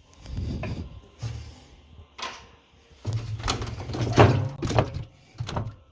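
Knocking, scraping and rattling of parts as an LG top-loading washing machine is taken apart by hand, loudest about three to five seconds in.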